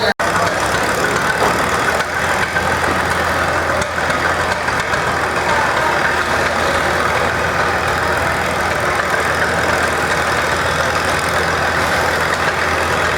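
Farm tractor engine running at a steady speed while pulling a deadweight sled.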